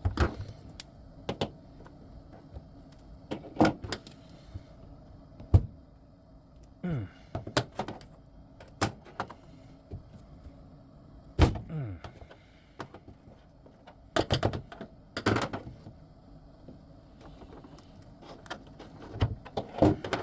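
Irregular sharp clicks, snaps and knocks of pliers and small tools at a workbench as old fuse-style glass indicator lamps are broken apart, with a low hum underneath.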